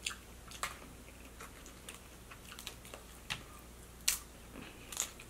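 Boiled crawfish shells being cracked and peeled by hand: a handful of sharp, scattered cracks and clicks, the loudest about four seconds in.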